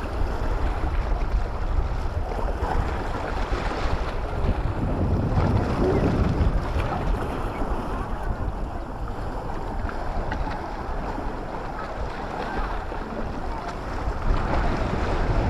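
Wind buffeting the microphone over the wash of sea waves.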